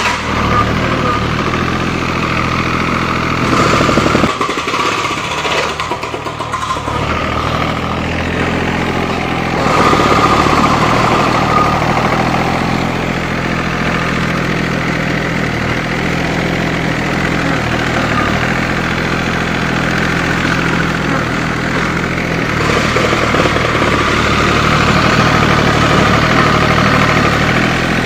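Yanmar 3TN three-cylinder diesel engine running steadily at idle, now starting after the fuel shut-off solenoid was sorted out; its speed and level shift a few times, dipping briefly about five seconds in and picking up again around ten seconds in.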